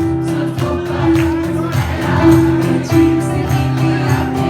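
Bollywood retro film song playing loudly, with singing over a steady beat.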